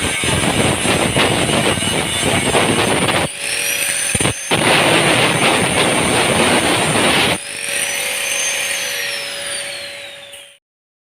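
A bus's diesel engine revved hard through a loud, open 'ngorok' exhaust, heard in a few short cuts. A high whistle rises and falls over it twice. The sound fades away about a second before the end.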